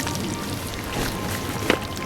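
Tempura sizzling and crackling as it deep-fries in hot oil, under background music. One sharp tap about one and a half seconds in.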